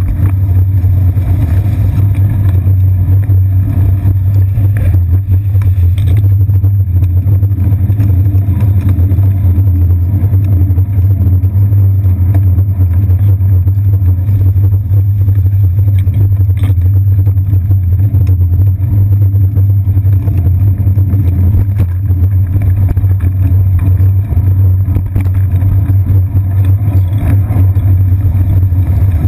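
Steady, loud low rumble of wind and road vibration picked up by a camera mounted on the seat post of a bicycle riding through city traffic.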